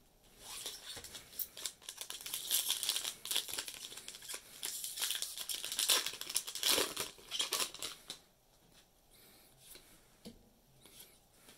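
Foil wrapper of a Magic: The Gathering booster pack crinkling and tearing as it is ripped open by hand, a busy run of crackles for most of the first eight seconds. After that only faint soft ticks of cards being handled.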